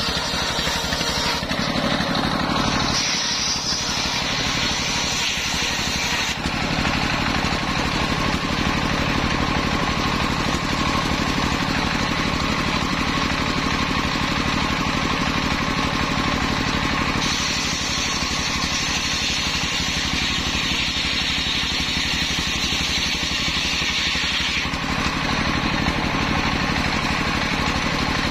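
Large engine-driven table circular saw running steadily, its belt-driven blade ripping through waru (sea hibiscus) logs. The cutting hiss grows louder twice: in the first six seconds and again from about 17 to 25 seconds in.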